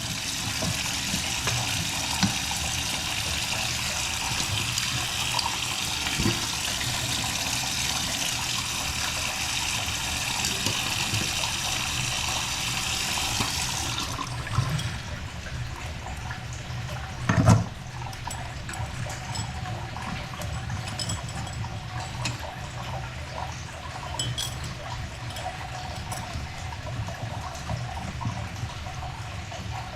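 Water running hard through a faucet fitted with a Moen 1224B cartridge, turned on to the cold side. About fourteen seconds in, the flow drops sharply to a softer trickle, with a single knock a few seconds later.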